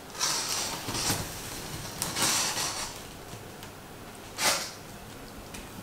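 Box cutter slicing through the packing tape on a cardboard box, in three strokes: two longer ones in the first half and a short one about four and a half seconds in.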